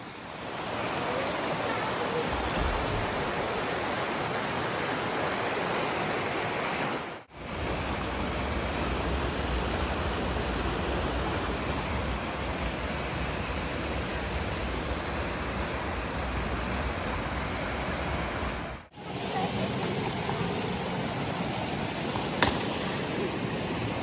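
A swollen, muddy mountain stream rushing over rapids: a steady, even roar of water. It cuts out for a moment twice, and a single sharp click sounds near the end.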